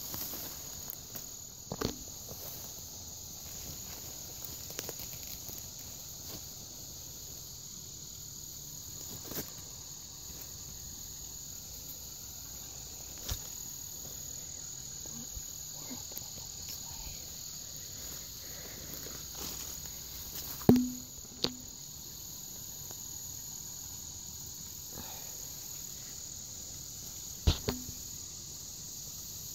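Steady, high-pitched chorus of insects, such as crickets, with a few sharp knocks and clicks, the loudest about two-thirds of the way through and again near the end.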